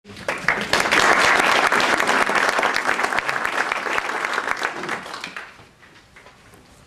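Audience applauding, fading out about five and a half seconds in.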